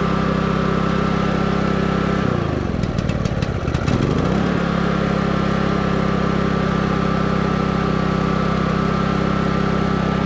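MaXpeedingRods MXR4500i inverter generator's four-stroke petrol engine running steadily. About two seconds in it bogs down, dropping in pitch with some crackle, then picks back up to its steady speed a couple of seconds later. The owner takes the stumble for the choke coming on while the lever is set to off, because the choke label is the wrong way around.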